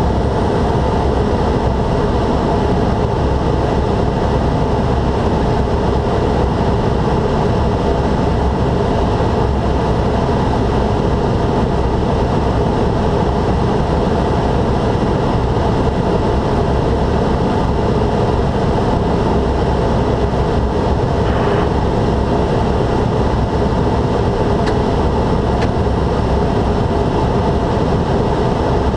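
Steady in-flight cockpit noise of a Socata TBM 850: its Pratt & Whitney PT6A turboprop engine and MT propeller running with airflow over the cabin, a constant drone with several steady tones in it.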